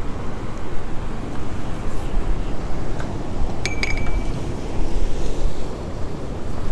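Wind noise on the microphone over ocean surf, with a short metallic clink a little under four seconds in.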